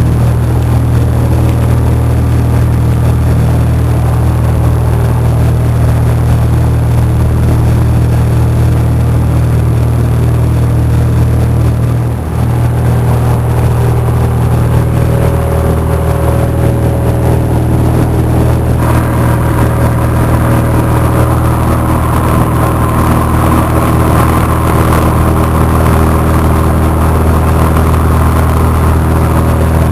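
Cessna 172's piston engine and propeller droning steadily in flight, heard from inside the cabin. A band of hiss joins the drone about two thirds of the way in.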